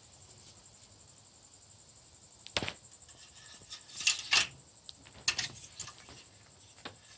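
A handful of sharp clicks and knocks, loudest in a cluster about four seconds in, over a steady high chirring of crickets.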